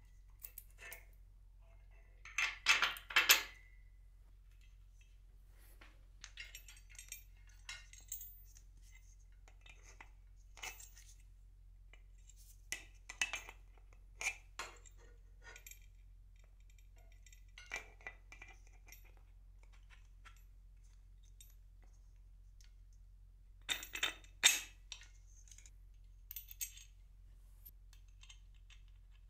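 Metal pulley hardware clinking and rattling as it is handled: a pulley wheel, its bracket and the bolt being taken off and fitted by hand. Scattered light clinks, with a louder clatter about three seconds in and another about twenty seconds later.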